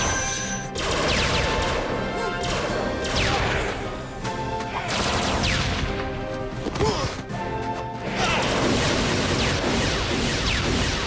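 Action sound effects of energy blasts and explosions, a run of loud crashing blasts with falling whistling sweeps, some cutting off sharply, with music underneath.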